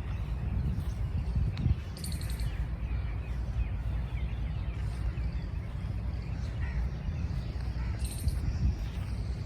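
Songbirds chirping, with a short, high, rapid trill about two seconds in and another near the end, over a steady low rumble.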